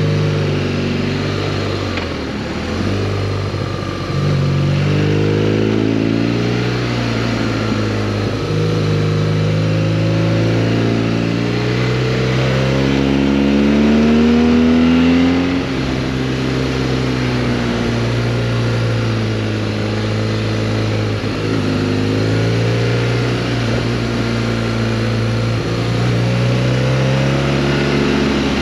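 Motorcycle engine running on the road, its pitch rising and falling with the throttle. A long climb in revs through the middle ends in a sudden drop, the way an upshift sounds.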